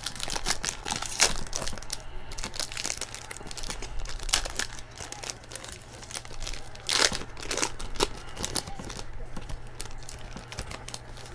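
Foil wrapper of a 2018 Tier One baseball card pack being torn open and crumpled by hand, a run of irregular crinkles and rips, loudest about a second in and again about seven seconds in.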